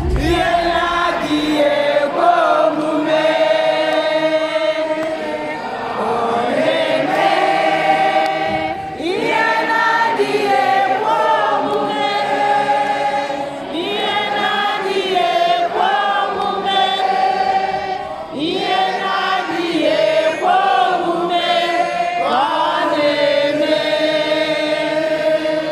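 A choir singing, several voices holding long notes in phrases of a few seconds, each phrase opening with an upward slide in pitch, with almost no bass or drums.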